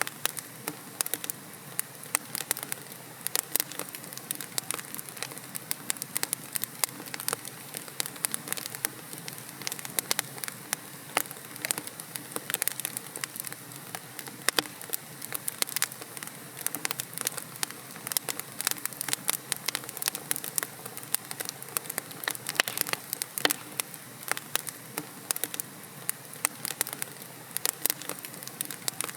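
Wood fire in a fireplace crackling: dense, irregular sharp pops and snaps from burning logs over a steady soft hiss.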